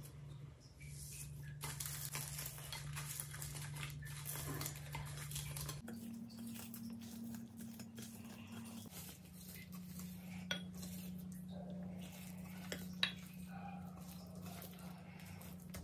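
Bare hands mixing and kneading rice with mashed potato and daal on a plate: soft wet squishing of food with fingers scraping and tapping the plate, and a couple of sharp clicks about ten and thirteen seconds in. A steady low hum runs underneath.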